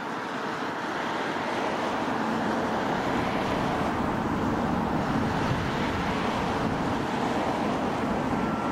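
Boeing 737 MAX's CFM LEAP-1B turbofan engines running on the runway as a steady rush of noise, building a little over the first second and then holding. A faint steady whine comes in near the end.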